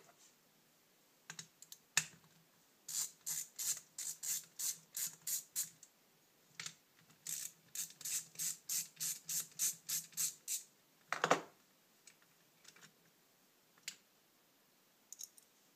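A ratcheting hand tool working a bracket fastener on a motorcycle carburettor bank: two long runs of quick clicks, about four a second, with a few stray clicks around them. A single louder clunk comes about eleven seconds in.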